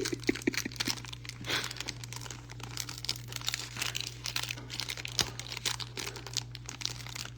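Pokémon trading cards being slid into soft plastic card sleeves: a run of light, irregular plastic crinkling and rustling over a steady low hum.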